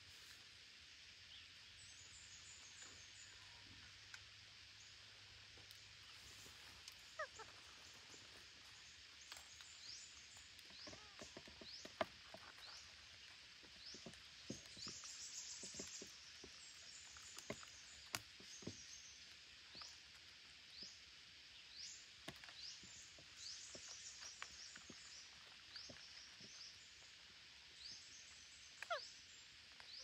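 Faint outdoor ambience: a steady high hiss with many short, high, rising bird chirps scattered throughout, a few falling whistles and occasional soft clicks.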